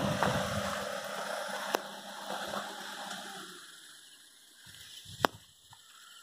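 A running Maruti Suzuki Swift, its engine and fan giving a steady hum and whoosh that fades away over the first three or four seconds. Two sharp clicks follow, the louder one near the end.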